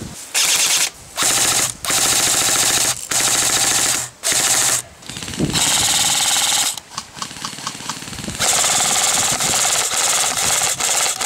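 Airsoft guns firing repeated full-auto bursts, each lasting about a second with short gaps between; one stretch in the middle is a quicker string of single shots.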